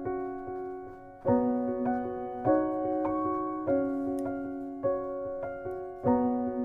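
Background piano music: soft chords struck about every second and a quarter in an even, repeating pattern, each left to ring and fade.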